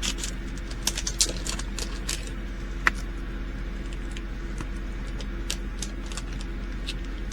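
Irregular light clicks and ticks from handling small plastic bags of resin diamond-painting drills, over a steady low hum. One tick about three seconds in is a little sharper than the rest.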